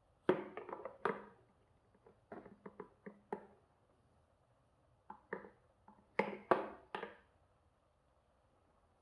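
Handling noise from the stick vacuum's hard plastic parts: three clusters of quick clicks and knocks, as if pieces are being fitted together or set down. The vacuum's motor is not running.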